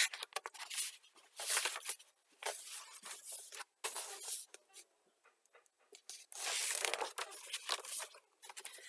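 Pages of a thin paperback book being opened and handled, rustling and flapping in a run of short bursts, with a longer rustle about six seconds in.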